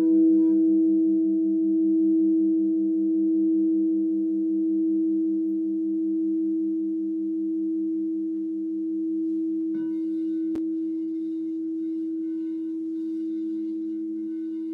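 Several crystal singing bowls ring together in long, slowly fading tones, the lowest one pulsing in an even, wavering beat several times a second. About ten seconds in, another bowl is struck softly and joins with a brighter ring, followed by a single short sharp tick.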